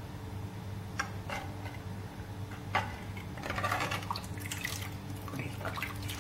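Steel ladle stirring thin, milky payasam in an aluminium pan: the liquid sloshes and drips off the ladle, with a few light clinks of the ladle against the pan.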